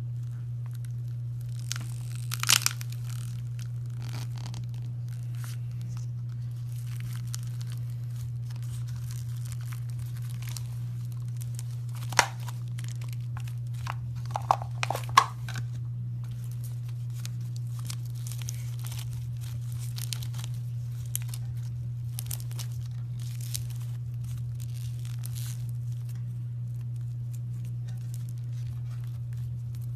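Slime being stretched and pressed by hand, giving scattered crackles, small pops and tearing sounds, with sharper snaps about 2 seconds in, about 12 seconds in and around 15 seconds. A steady low electrical hum runs underneath.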